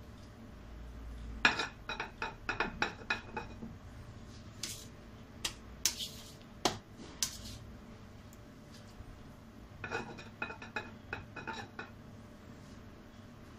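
Metal utensils clinking and tapping: a quick run of light, ringing clinks about a second and a half in, a few single taps in the middle, and another quick run near ten seconds.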